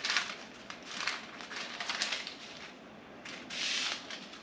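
Parchment paper rustling and crinkling as dough is pressed down on it, first by hand and then with a fork. It comes in several short bursts, the longest near the end.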